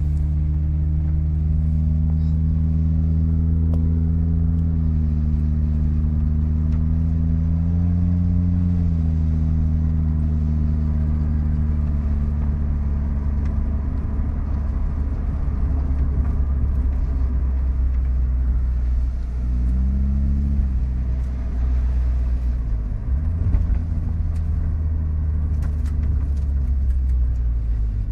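Car engine running as the car drives, its note rising as it pulls away, then holding fairly steady with a few brief rises and dips in pitch. In the second half the engine note is mixed with a rougher, noisier rumble.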